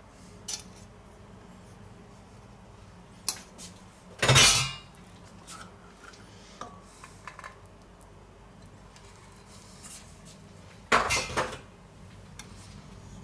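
Stainless steel kitchen bowls and utensils clattering as ingredients are tipped into a large steel mixing bowl: a few light knocks, with two short, loud clatters, one about four seconds in and one near the end.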